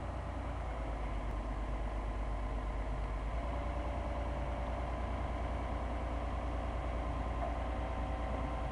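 Komatsu crawler excavator's diesel engine running at a steady idle with a low drone. About three and a half seconds in, a higher steady whine joins it.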